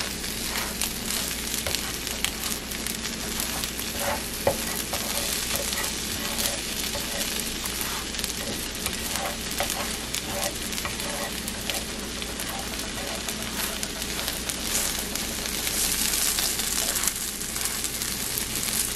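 Breaded veggie chicken patties sizzling in hot oil in a nonstick skillet, fried alongside spinach and onions. A fork and a slotted spatula scrape and tap against the pan as the patties are turned.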